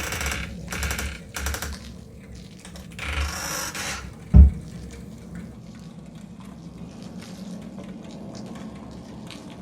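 Hand-made Foley sound effects: a few short rustling or scraping noises, then one loud, low thump a little over four seconds in, followed by faint low noise with small clicks.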